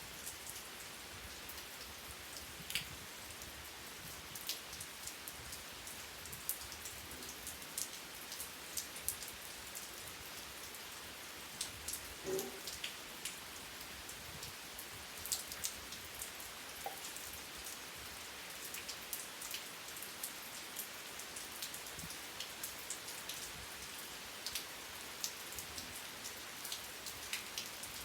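Steady rain with the sharp ticks of individual drops hitting a surface, scattered through the whole stretch.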